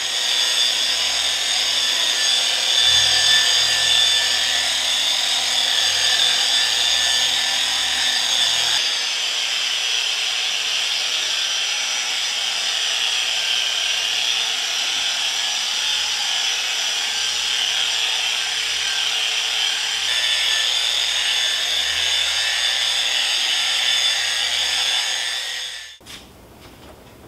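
Corded dual-action orbital polisher running steadily, its foam pad spreading wax over a car's painted door panel. The whir stops suddenly near the end.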